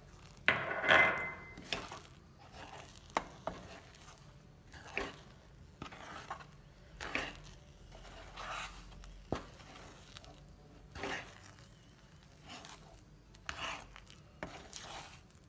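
A flat metal spatula scraping and stirring thick almond paste and powdered sugar around a kadhai, in irregular strokes every second or two with a few sharp clicks against the pan. The loudest scrape comes about half a second in.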